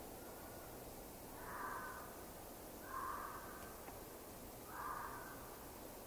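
A fox barking three times, short calls spaced a second or two apart, over a steady background hiss.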